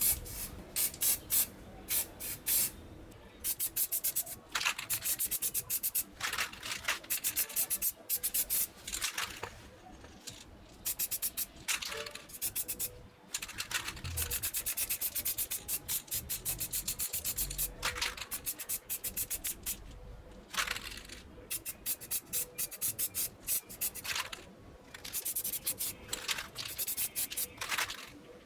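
Hand abrasion on a rusty metal lamp part, sanding or scrubbing in runs of quick back-and-forth strokes with short pauses between runs.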